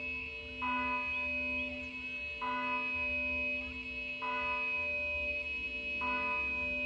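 Church bell tolling, struck about every two seconds, four strokes in all, each stroke ringing on and overlapping the next.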